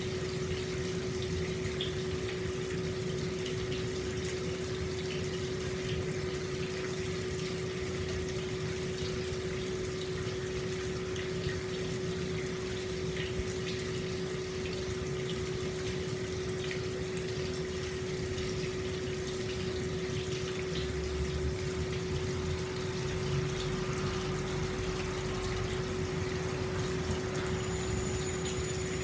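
Hot spring water flowing steadily into an open-air bath, a continuous splashing rush, with a steady low hum running underneath. A faint high whistle comes in near the end.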